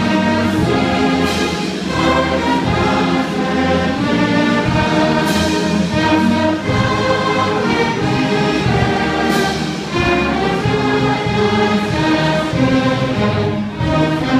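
High school ensemble performing orchestral music for an armed forces tribute, with strings and a choir singing along.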